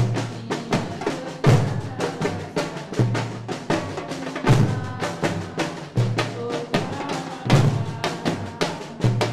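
Afro-Brazilian percussion ensemble drumming: a deep bass-drum stroke about every second and a half, with quicker, sharper drum strokes filling between.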